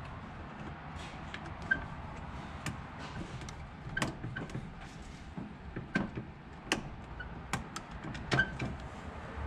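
Irregular light metallic clicks and taps of hand work on a Holley carburetor's throttle linkage, fitting its small retaining clips, a few clicks ringing briefly, over a low steady background hum.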